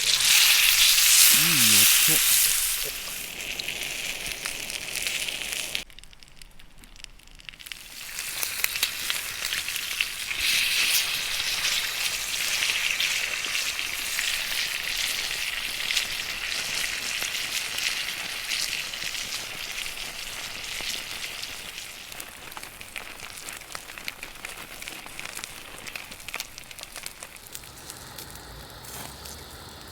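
A block of pork belly sizzling in hot fat as it sears: a steady frying hiss, loudest in the first few seconds, that drops out briefly around six seconds in, then comes back and slowly fades. Called a nice sound.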